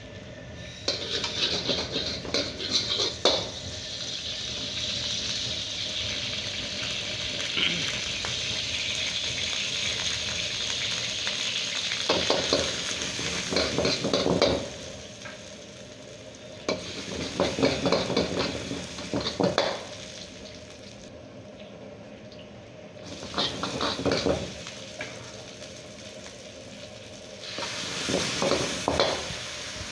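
Hot oil and chopped aromatics sizzling in a steel wok over a gas burner. A metal ladle scrapes and clanks against the wok in several bursts as the food is stir-fried.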